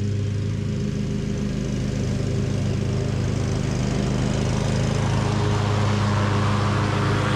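Cub Cadet XT2 LX42 riding lawn mower running steadily at working speed while driving across the lawn. It grows louder and brighter over the last couple of seconds as it draws up close.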